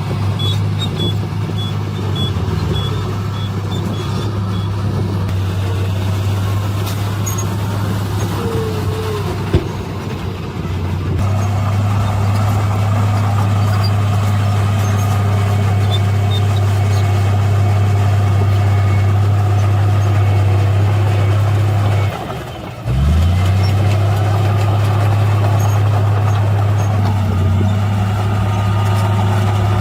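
Heavy diesel construction-machine engine running steadily, the sound of dump trucks and a bulldozer working a fill site. A reversing alarm beeps about twice a second over the first few seconds. The engine sound drops briefly about three-quarters of the way through, then comes back.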